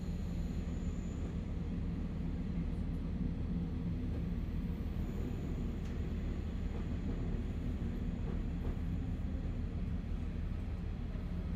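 Inside a KiHa 40 diesel railcar on the move: a steady low drone from its diesel engine and running gear, with a few faint clicks in the middle.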